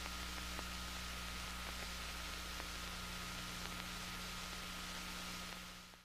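Steady hiss from an old recording, with a low mains-type hum and faint ticks about once a second, fading out near the end into silence.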